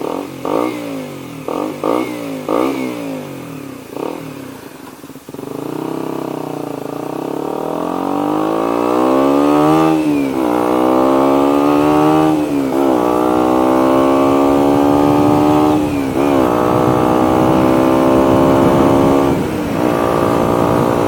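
KTM Duke 125's single-cylinder four-stroke engine through an aftermarket full exhaust system. In the first few seconds it is revved in several short blips. Then it pulls steadily up through the gears, its pitch climbing and dropping sharply at each of four upshifts.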